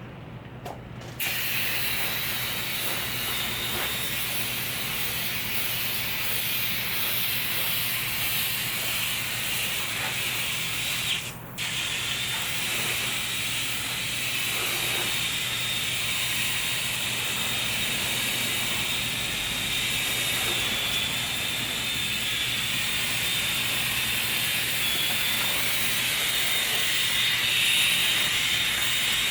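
Water spray hissing steadily as it pours over a RetraxPro XR retractable tonneau cover to simulate rain. It starts about a second in, cuts out for a moment near the middle, then carries on.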